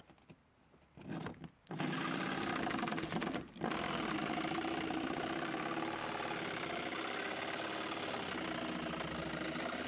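Corded jigsaw cutting a round access hole through a sailboat's fiberglass deck: a short burst about a second in, then it runs steadily, stopping briefly about three and a half seconds in before carrying on.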